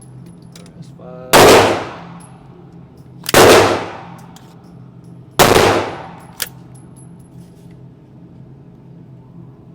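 Three 9mm Glock pistol shots, about two seconds apart, each trailing off over about a second, followed a second after the last by a short, sharp tick.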